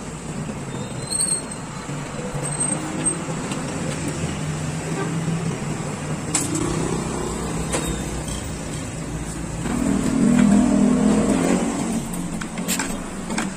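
A vehicle engine running steadily, growing louder for a second or two about ten seconds in, with a few sharp light clicks.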